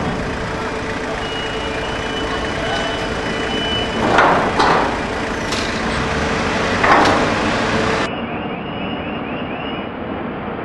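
Container crane and spreader machinery running steadily, with a high steady tone for a couple of seconds and loud metal clanks about four and seven seconds in. Near the end the sound changes to a quieter drone with a rapidly repeating chirp.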